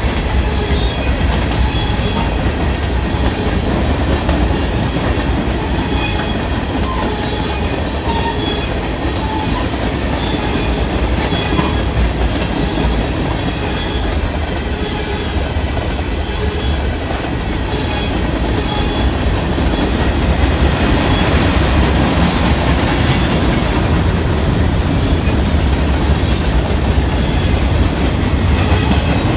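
Train cars rolling past with a steady rumble, wheels clicking over the rail joints, and a brief high wheel squeal near the end.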